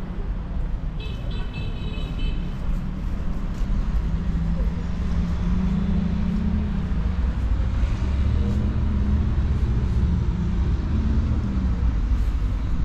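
Road traffic on a city street: a steady low rumble of passing vehicles, with one vehicle's engine humming louder through the second half. A brief high whine rings about a second in.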